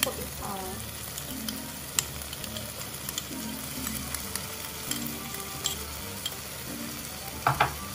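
Chopped onion and tomato sizzling steadily in a nonstick frying pan, with a few sharp clicks as tomato sauce is spooned into the pan from a small bowl, a quick cluster of them near the end.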